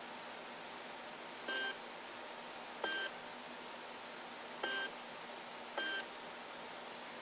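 Four short electronic beeps, each about a fifth of a second long, come at uneven intervals over a faint steady hiss. The second beep opens with a click.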